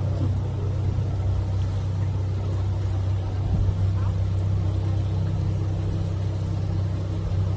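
Tour boat's engine running steadily, a constant low hum under the faint wash of the water.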